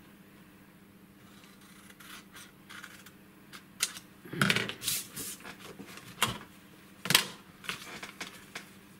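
Scissors snipping through patterned craft paper, several sharp cuts starting about four seconds in, mixed with paper being handled and set down, over a faint steady hum.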